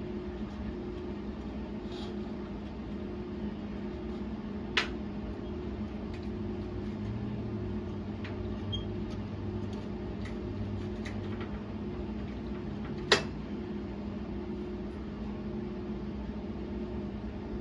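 Steady electrical machine hum in a workshop, with a sharp metallic click about five seconds in and a louder one near two-thirds of the way through.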